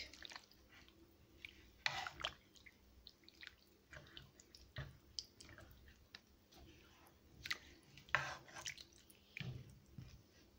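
Silicone spatula stirring raw chicken pieces through a wet tomato and spice mixture in a frying pan: faint, irregular wet squelches and light scrapes against the pan.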